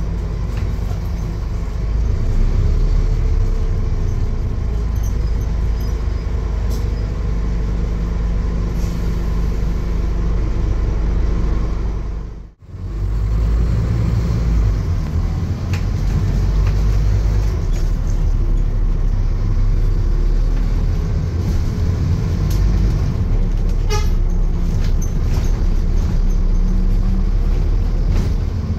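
Scania N230UD double-decker bus's five-cylinder diesel engine and drivetrain running as the bus drives, heard from inside the passenger saloon as a steady low-pitched drone. The sound cuts out for a moment about halfway through.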